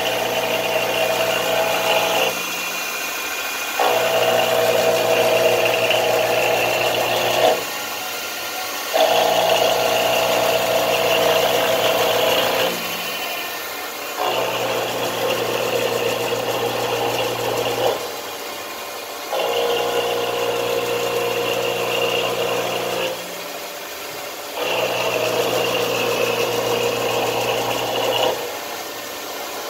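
Enshu SBV400 CNC vertical milling machine cutting a steel plate, running with a steady whine and hum. It works in passes of about three and a half seconds, each broken by a short dip of about a second and a half, six times in all.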